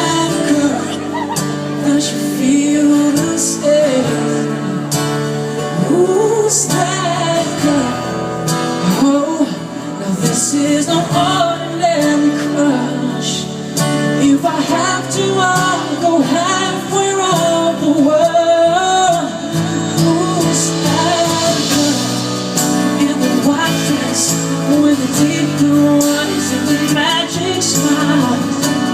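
Live pop concert music: a band playing with a singing voice over it, recorded from the audience.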